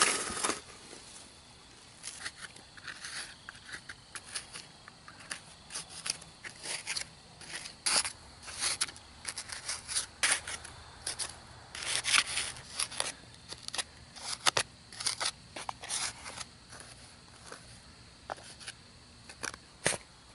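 Spade and hand trowel blades scraping and cutting into soil in short, irregular strokes, digging out an aluminium ant-hill cast.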